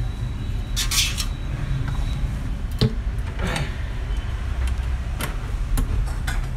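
Scattered small metal clicks and clinks from a laptop's display hinges and lid cover being handled and tapped with a screwdriver, over a steady low hum.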